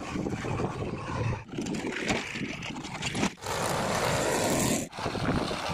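Diesel engines of a JCB 3DX backhoe loader and a Mahindra Yuvo tractor running, heard in short clips joined together, with abrupt changes about a second and a half in, just after three seconds and near five seconds.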